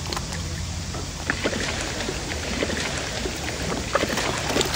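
Koi splashing at the surface of a pond: many small, irregular splashes and plops, over a steady low hum.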